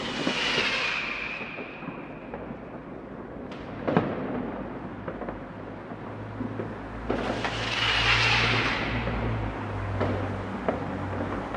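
New Year's Eve fireworks: a hissing rocket with a slightly falling whistle, a sharp bang about four seconds in, then another long hissing, whistling swell, with scattered small pops and a low rumble underneath.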